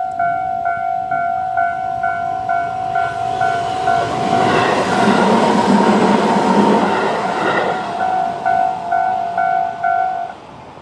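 Japanese level-crossing warning bell dinging at about two strikes a second while a Tobu 20400 series electric train rushes through the crossing in the middle. The train noise fades and the bell cuts off near the end, the crossing clearing after the train has passed.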